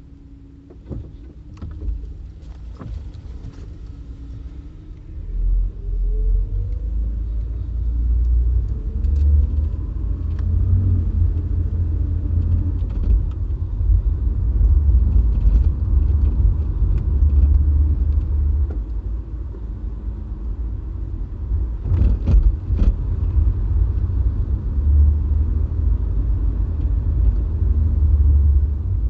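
A car driving, heard from the car itself. It is quiet at first, then a low rumble of engine and road noise builds as it pulls away about five seconds in, with a rising whine as it speeds up. A few sharp knocks or clicks come near the start and again about three quarters of the way through.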